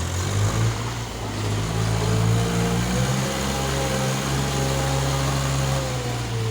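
An engine running steadily, its pitch rising a little about a second in and then holding.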